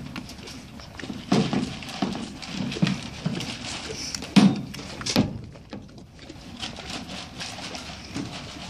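Horse eating feed from a plastic bucket: irregular crunching and knocks of its muzzle against the bucket, with one louder knock about four and a half seconds in.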